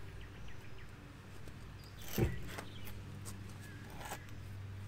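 A mud-terrain tyre and wheel being worked off the wheel hub by hand: one sharp thump a little over two seconds in, then a few lighter knocks, over a steady low hum.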